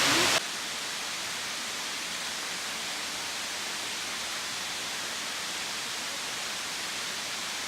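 Steady, even rush of Brandywine Falls' falling water. It is louder for about the first half second, then drops to a lower steady level.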